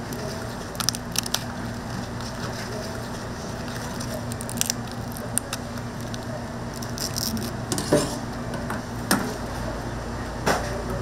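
Steady hiss and crackle of chicken deep-frying in oil, with a low hum and a few sharp clicks and knocks of utensils.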